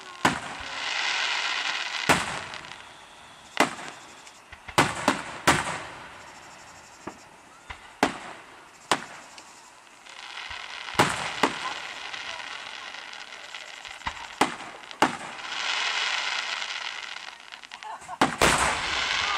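Aerial fireworks shells bursting overhead: a string of sharp bangs, some coming in quick clusters of two or three, with longer stretches of hissing noise between them.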